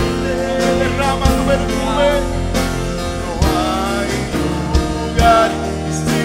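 Live worship music: singers holding long, sliding notes into microphones over sustained instrumental backing, with a few drum hits.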